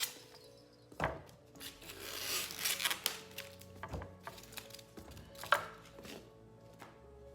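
Knocks, taps and rustling of kitchen items being handled and set down, with a sharp knock about five and a half seconds in, over soft background music.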